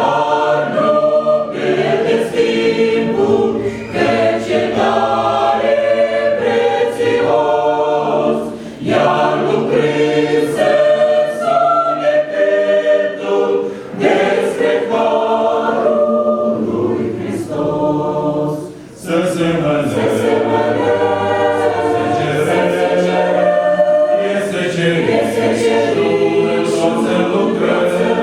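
Church choir singing, with a few short breaks between phrases.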